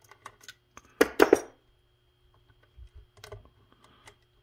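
Small clicks and taps of a screw and fingers against a McCulloch Super Pro 70 chainsaw's housing as a screw is being fitted by hand, with a cluster of about three sharp knocks a second in.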